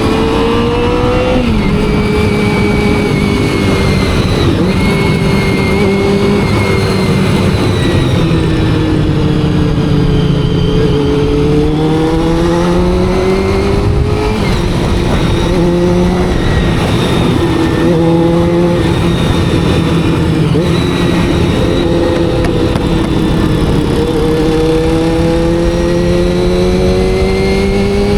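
Honda CBR400RR NC23's carbureted inline-four running under way, its pitch rising and falling slowly with the throttle. The pitch drops suddenly at several gear changes, the first about a second and a half in and more in the middle of the stretch.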